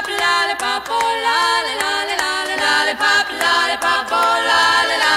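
Background music: several voices singing together in harmony, with no instruments to be heard, over a steady clicking beat.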